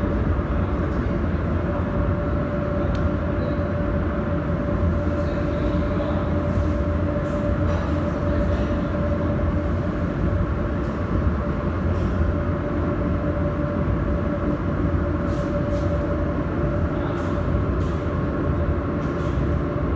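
Mold laser welding machine running: a steady mechanical hum with a held tone and low rumble, with a few scattered sharp clicks.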